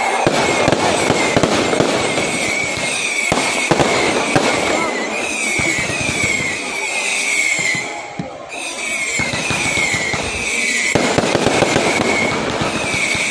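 Fireworks crackling and popping in a dense, continuous stream of rapid small bangs, easing briefly about eight seconds in before picking up again.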